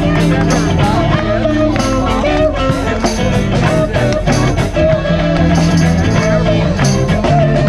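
Live band playing a song on amplified guitars and bass guitar, with a steady beat and a wavering lead melody over it.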